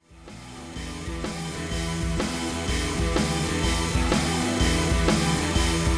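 Background rock music with a steady drum beat, fading in from silence and growing louder.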